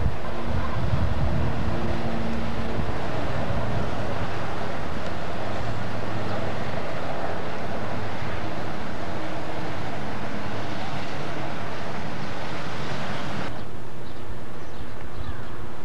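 Steady loud rushing noise with a low engine hum underneath. The rushing cuts off abruptly about 13.5 seconds in, leaving a fainter hiss and hum.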